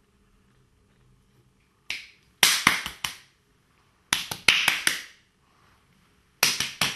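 Three quick runs of loud, sharp snaps, a few strokes each, about two seconds apart, each stroke dying away quickly with a short room echo.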